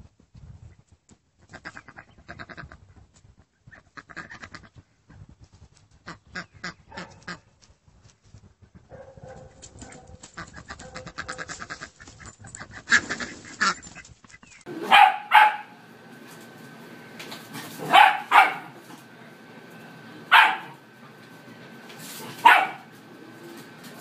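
Two dogs play-wrestling in the grass, with soft scuffling. After a cut come six loud, short animal calls, the first four in pairs.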